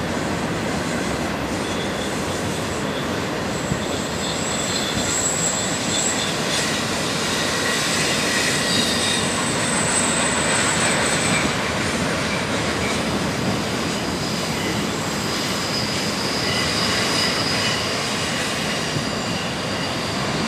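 Intermodal freight cars of a BNSF train rolling past on a curve: a steady rumble of steel wheels on rail, with high-pitched wheel squeal coming and going throughout.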